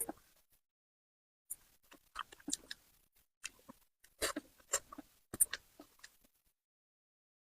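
Close-miked chewing of spicy braised fish: irregular clusters of short, wet mouth clicks and smacks, after a second-long pause near the start.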